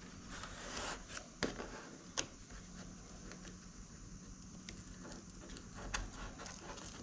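Faint handling sounds of a foam marine mat and its paper backing being folded and pressed into place: soft rustling with a few sharp ticks, the clearest about one and a half and two seconds in.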